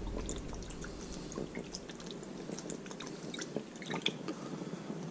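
Soy sauce dripping and dribbling from a bottle onto cubes of raw shark meat in a dish: quiet, scattered small drips and ticks.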